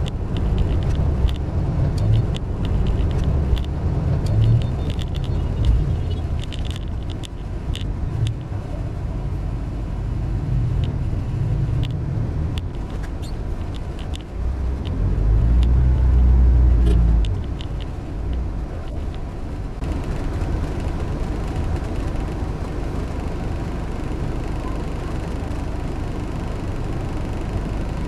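Car being driven, a low rumble with many small knocks and rattles through the first half and a heavier rumble about halfway, then running more evenly: a test drive to check whether the repaired door still rattles over bumps.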